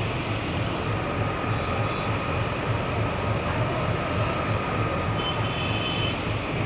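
Steady rumble of rail traffic in a railway yard, with a regular low throb and a faint steady whine over it.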